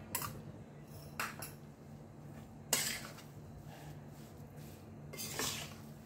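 A metal spatula scraping and knocking against a steel kadai while a thick, crumbly flour-and-ghee mixture is stirred. The strokes come irregularly, the loudest a little under three seconds in and another run a little after five seconds, over a steady low hum.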